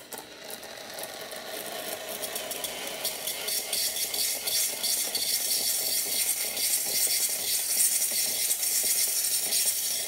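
Rancilio Silvia espresso machine's steam wand open into a jug, hissing and spitting as the wand is purged with the boiler at steam pressure. It grows louder over the first few seconds, then holds steady.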